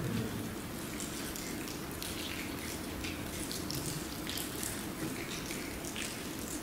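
Faint crinkling and light clicking from a prefilled plastic communion cup as its seal is peeled and it is handled. A steady low hiss runs underneath.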